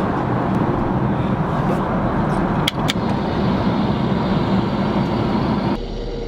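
Steady roar of an airliner cabin in flight, with two quick clicks close together a little under three seconds in. The roar cuts off abruptly near the end, leaving a quieter low hum.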